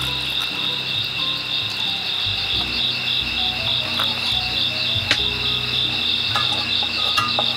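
Crickets chirping in a steady, pulsing chorus, with a few sharp clicks about four and five seconds in.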